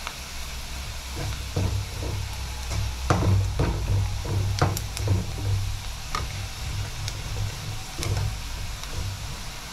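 Chopped onions and dried red chillies sizzling in a black kadai on a gas flame while a spoon stirs them, scraping and knocking against the pan. The scrapes come thickest about one to six seconds in.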